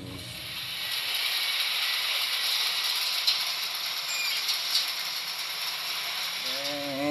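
Wheel loader at work: a steady mechanical rattling clatter with a few faint clicks, rising slightly after the first second.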